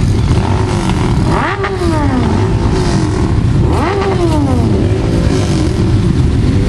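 Many motorcycle engines running together, with a throttle blipped twice, about a second and a half in and again near four seconds, each rev rising sharply and falling back.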